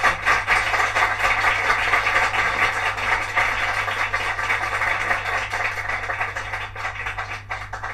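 Shure M3D phono cartridge with a modified Victor replacement stylus tracking the lead-in groove of an LP: steady surface hiss with scattered crackles and a constant mains hum underneath. The hiss slowly fades, and the crackles stand out more near the end.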